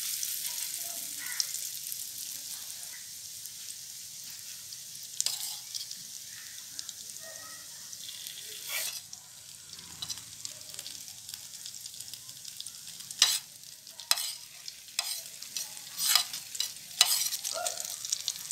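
Batter-coated bread slices sizzling as they shallow-fry in oil on a flat nonstick pan: a steady high hiss. Sharp taps and clicks from handling come now and then, more often in the second half.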